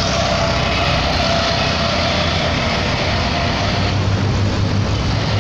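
Engine and road noise heard on board a vehicle driving along a busy city street, with other traffic around. A low engine hum grows stronger about four seconds in.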